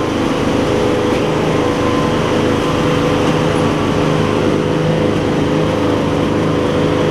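The 20 hp V-twin engine of an MTD Lawn Chief garden tractor running steadily as the tractor drives off. The owner says the engine needs a bit of a carburettor clean.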